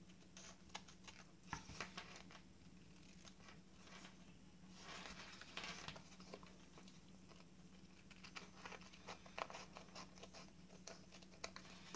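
Faint snips of scissors trimming the edge of a paper tag with decoupaged napkin on it, with light paper rustling and crinkling between the cuts. A faint steady hum sits underneath.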